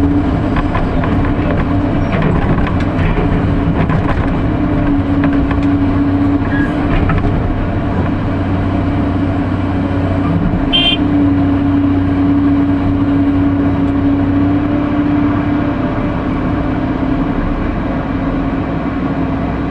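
Sany SY215 excavator's diesel engine running steadily under load, with clanks and scrapes in the first few seconds as material is dug and loaded. A brief high-pitched tone sounds about halfway through.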